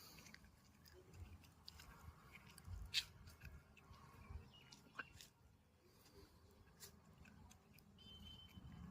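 Near silence with faint scattered clicks and light handling noise; one sharper click about three seconds in, and a brief faint high tone near the end.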